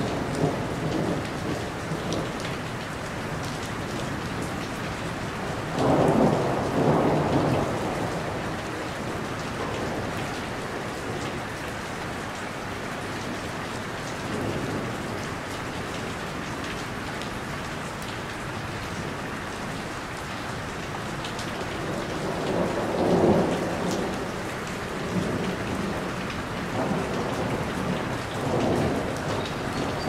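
Heavy rain falling on a roof, a steady hiss of drops that swells louder with a deeper rush twice, about six and about twenty-three seconds in.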